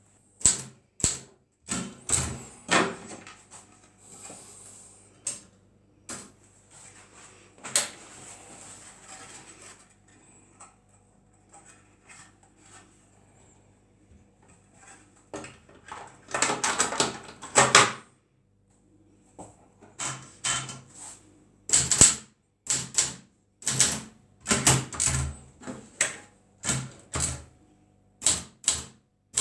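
Adler Gabriele 10 manual typewriter in use: keys striking in irregular sharp clacks, with a dense run of rapid clatter about two-thirds of the way through.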